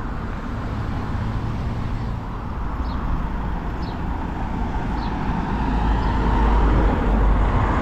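Road traffic on a village street: cars passing with engine and tyre noise, a steady rumble that grows louder near the end.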